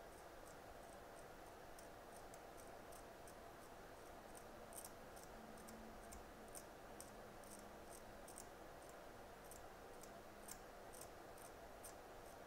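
Faint, irregular small clicks, several a second, of a blade scraping underfill from an iPhone 8 Plus logic board, over a low steady hum.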